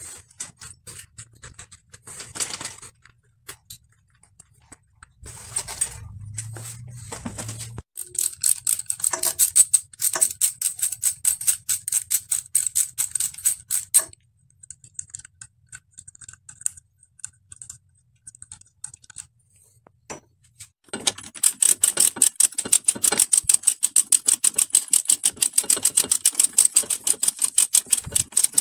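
Metal tool and bicycle parts clicking and clinking during handling. For the last several seconds a socket ratchet wrench clicks in a fast, even run as it is worked on the bicycle's bottom bracket.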